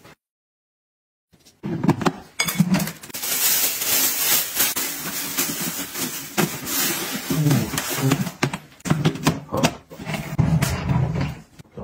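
After a second and a half of silence, plastic-wrapped soft items crinkle and rustle as they are packed by hand into a plastic storage bin, with knocks from handling the bin. Near the end the bin's lid is pressed shut.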